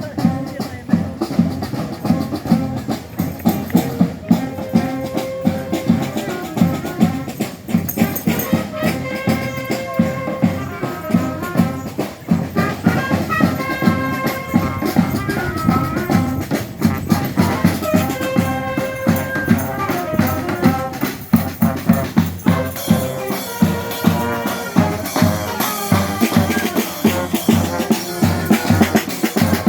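Honk! street band playing at a parade: drums and percussion keep a steady, driving beat while brass and wind instruments play melody lines that come and go.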